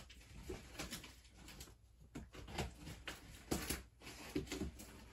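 Faint, scattered rustles and clicks of cardboard and tape packaging being handled during an unboxing.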